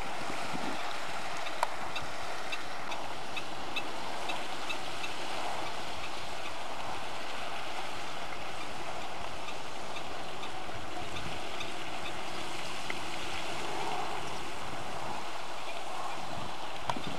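Steady rushing noise of wind and water, with faint short high ticks scattered through it.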